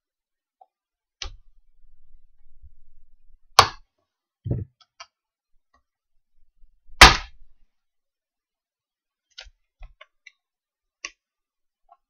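Plastic case of a Dell 90W laptop AC adapter being twisted apart by hand: two sharp cracks as the seam snaps, about 3.5 and 7 seconds in, the second the louder, with a dull knock between them and scattered small plastic clicks.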